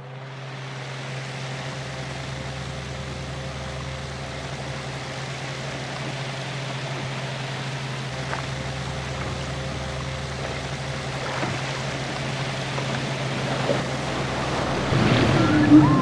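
Logo-intro sound effects: a steady rushing hiss over a low steady hum, slowly growing louder. Near the end it swells and sliding, whale-like calls begin.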